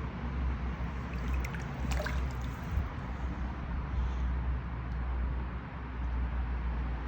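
Shallow stream water trickling steadily over a steady low rumble, with a few faint clicks between one and two seconds in.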